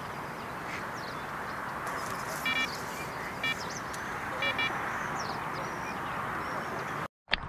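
Lakeside ambience at dusk: a steady background hiss with faint bird chirps, and a duck quacking in four short calls in the middle. The sound cuts off abruptly near the end.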